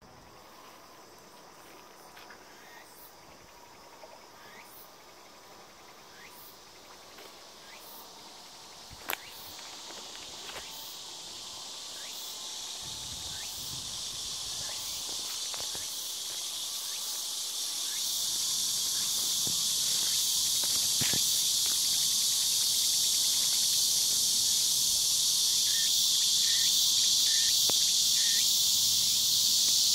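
Steady high-pitched insect chorus that swells from faint to loud over the first two-thirds and then holds. A single sharp click about a third of the way in.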